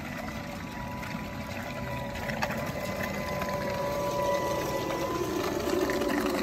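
Battery-electric mini skid-steer loader driving over soft, wet ground: a steady electric motor whine with a hum beneath it, growing louder towards the end.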